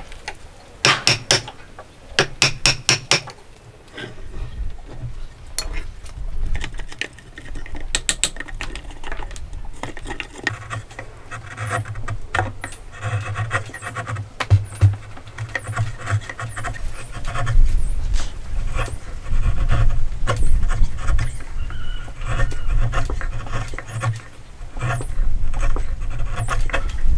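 Two quick runs of hammer strikes on wood in the first three seconds, then a long stretch of irregular scraping and rubbing of a hand tool working wood.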